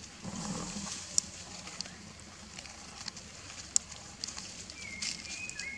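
Dry leaf litter crackling and rustling under a baby macaque's feet as it walks and climbs, with two sharp crisp clicks. Near the end come a few short high chirps, stepping in pitch.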